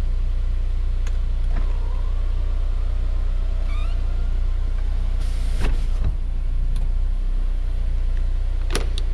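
Steady low rumble with a few short clicks and knocks, the loudest a little past halfway and a pair near the end.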